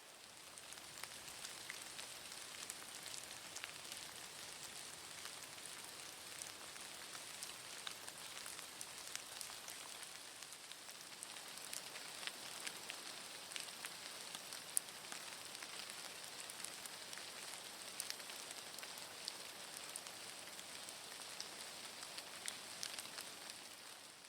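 Steady rain falling: an even hiss with many scattered drops ticking sharply.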